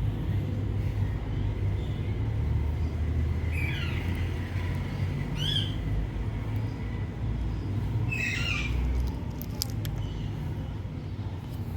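Indian ringneck parrot giving three short calls, the last one longer, over a steady low hum.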